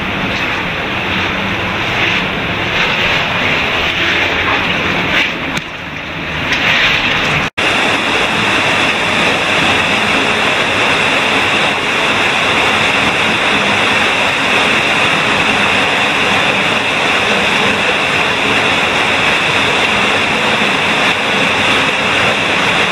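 Loud, steady rush of fast-flowing water in a cave streamway. There is a brief dropout about seven and a half seconds in, then the rushing goes on evenly.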